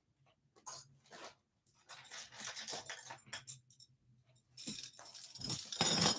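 Scattered small clicks and rustles of someone moving about and handling things, with louder rustling near the end as she comes up close to the microphone.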